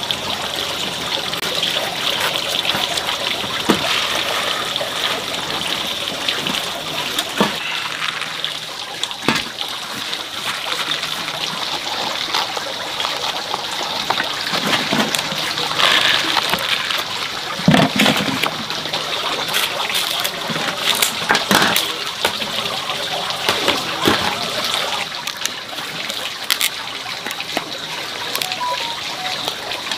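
Water trickling and splashing steadily, with scattered short knocks and clatters.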